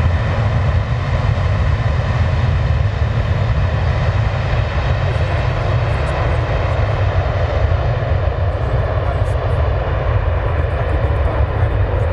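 Airbus A330 jet engines at takeoff thrust: a loud, steady deep rumble that holds without a break.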